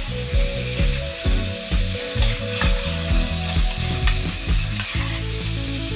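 A metal spatula scrapes and knocks against a stainless steel pot in irregular strokes as rehydrated black mushrooms are stir-fried in a dark sauce. The pan sizzles underneath.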